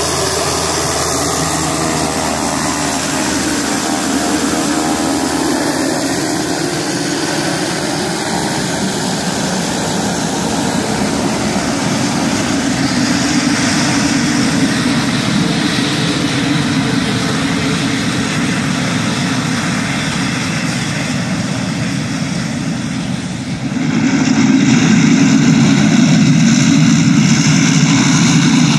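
Pilatus PC-12 NG's single Pratt & Whitney PT6A-67P turboprop running as the aircraft taxis, a steady turbine and propeller sound. It grows suddenly louder about 24 seconds in.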